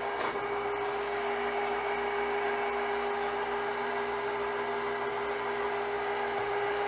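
A steady machine hum with a constant low drone, like an electric motor running.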